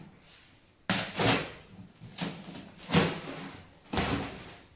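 Packing tape on a cardboard carton being sliced with a box cutter and ripped free. There are about five sharp rips and scrapes, starting about a second in, each fading quickly.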